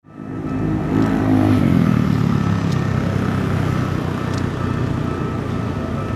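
Road traffic on a busy main road: a vehicle engine passes close by with its pitch falling over the first two seconds, then a steady traffic rumble with two short clicks.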